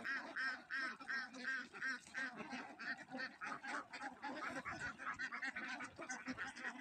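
A flock of camel ducks (Indian Runner ducks) quacking, with many short quacks overlapping in a quick, continuous chatter.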